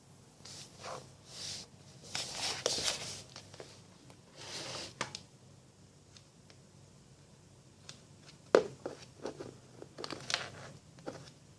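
Handling noises: irregular rustling and scraping, with several sharp clicks or taps, the loudest about two-thirds of the way through.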